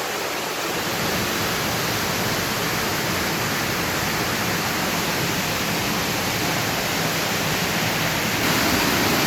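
Waterfall: a steady rush of falling water, growing a little louder near the end.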